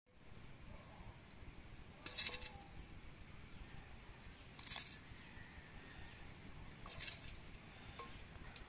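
Goat trotters being washed by hand in a steel bowl of water: faint sloshing with three short splashes.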